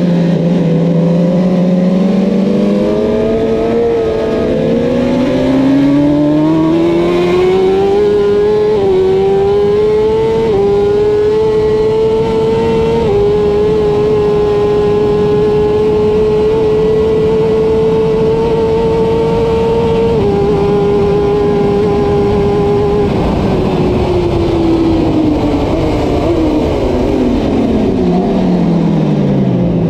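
Kawasaki Ninja ZX-10R superbike's inline-four engine at full throttle, heard from the rider's helmet over wind rush: its pitch climbs in steps through several upshifts, holds high and steady on a flat-out stretch, then falls away in the last seconds as the bike slows.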